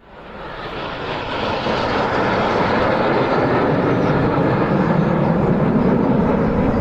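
Jet aircraft flying by, a loud steady rushing engine noise that rises out of silence over the first second or two and then holds.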